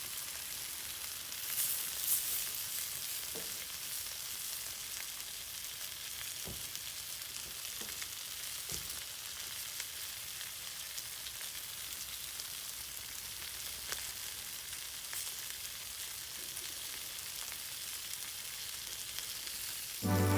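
Food sizzling steadily on a hot iron griddle over a campfire, a constant frying hiss with a few faint ticks and pops.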